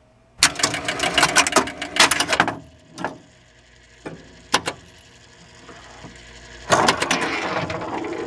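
Electromechanical pinball machine mechanism clacking: a quick run of clicks and clacks, a few single clicks, then a louder rattling stretch near the end.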